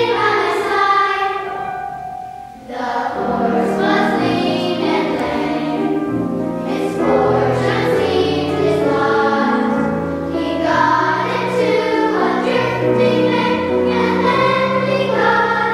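Girls' choir singing, accompanied by piano; after a brief dip in the singing, the low piano notes come in about three seconds in.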